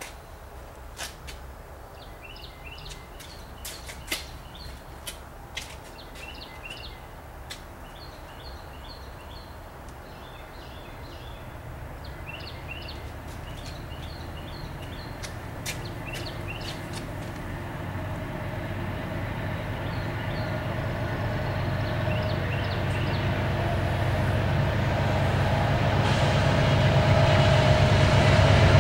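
Approaching CN freight train, led by a GE C44-9W and an EMD SD70M-2 diesel locomotive: a low rumble that grows steadily louder through the second half. Small birds chirp in short repeated phrases during the first half.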